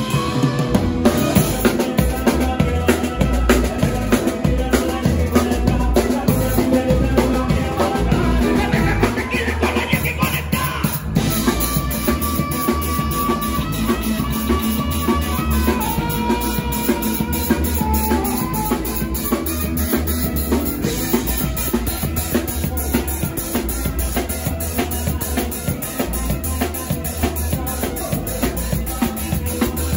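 Live band playing with a steady beat on drum kit, bass guitar and acoustic guitar, with a saxophone carrying melody lines.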